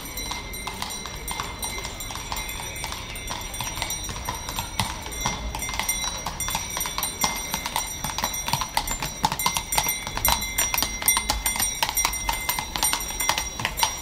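Horse's hooves clip-clopping on a street as a horse-drawn carriage passes, with steady ringing of harness bells; the hoofbeats grow louder and sharper in the second half.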